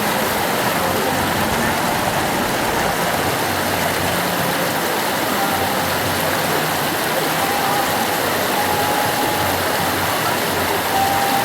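The river Ganges flowing: a steady, even rushing of water.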